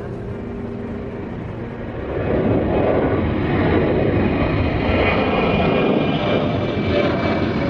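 Airliner engines growing loud about two seconds in: a dense, steady rush with a faint high whine as the aircraft passes close by.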